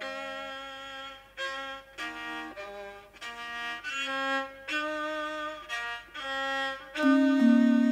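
Javanese gamelan accompaniment led by a rebab, the two-string bowed fiddle, playing a slow melody of held, wavering notes; it grows a little louder near the end.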